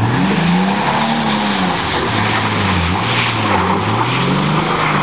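Car engine revving hard, its revs rising sharply and then swinging up and down several times, over a dense rushing noise from wheels spinning in mud.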